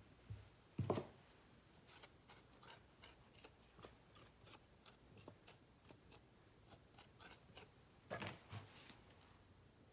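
Faint handling sounds of hands working clay coils onto a pot: scattered small taps and rubs, with two louder soft thumps, one about a second in and one near the end.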